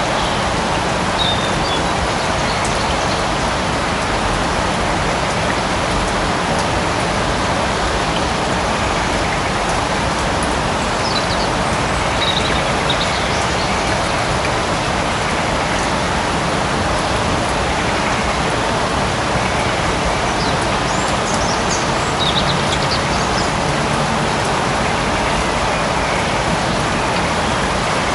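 Light rain falling steadily in a forest, an even patter and hiss. A few brief high chirps sound over it now and then.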